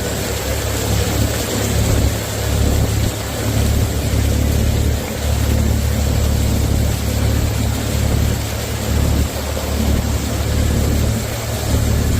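Polaris side-by-side's engine idling with a steady low rumble, over an even hiss.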